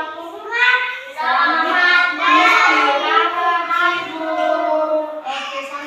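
A group of young children singing a short song together.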